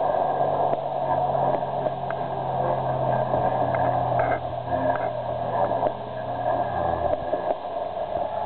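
Electric Protos 500 RC helicopter in flight, its spinning rotor blades and motor making a steady whirring drone. A low hum under it stops about seven seconds in.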